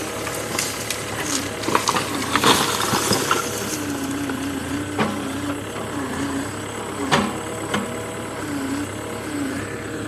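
Cat 305 mini excavator's diesel engine running, its pitch dipping again and again as the hydraulics take load, with scattered sharp clanks and knocks from the machine working, busiest in the first few seconds.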